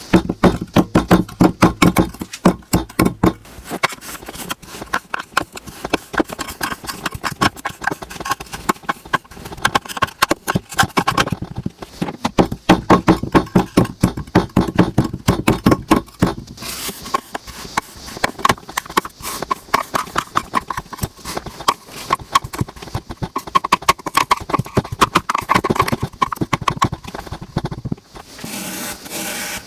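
Crunchy kinetic sand being worked, giving a dense, fast stream of crisp crackles and crunches. About two seconds before the end it changes to a steadier scraping rub.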